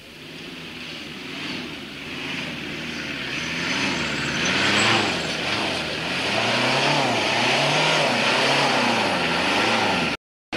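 Jeep Cherokee (XJ) engine revving up and down as it ploughs through a deep mud bog, wheels churning and throwing mud. The engine note rises and falls over and over, getting louder, and cuts off abruptly near the end.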